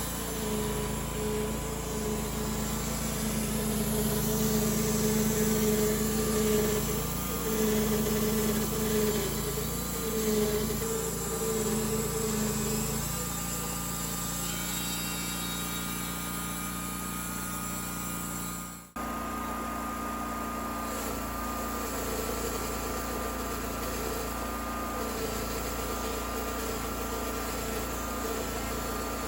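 Engine of a homemade bandsaw sawmill running steadily under load while the blade saws through a wide spruce log. Near two-thirds of the way through the sound cuts out for an instant and resumes at a steady pitch.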